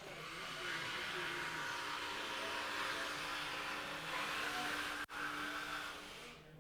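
Electric jigsaw running and cutting through a board, a steady motor-and-blade noise that starts just after the beginning, cuts out for an instant about five seconds in, and stops near the end.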